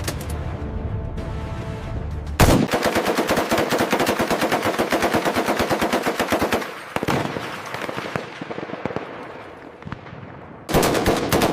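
M240 machine gun firing a long, rapid burst of about four seconds beginning a couple of seconds in, then scattered quieter reports, then another rapid burst near the end.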